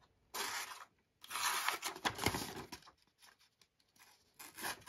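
Paper being sliced by two thin pocket-knife blades at once, a dry papery hiss in three strokes: a short one, a longer one of over a second, and a brief one near the end.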